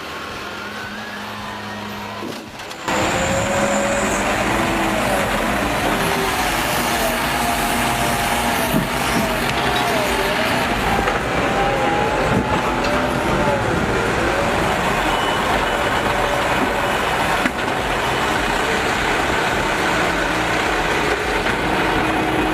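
Heavy truck engine running, its pitch rising and falling, and much louder from about three seconds in.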